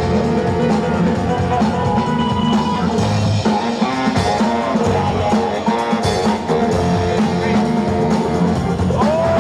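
Loud DJ music with drums and guitar, with a sliding, downward-bending tone near the end.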